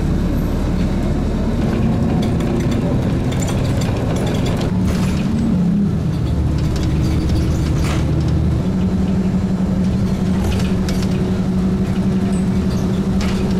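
Bus engine and road noise heard from inside the passenger cabin. The engine note rises, drops about six seconds in, then holds steady, with a few clicks and rattles.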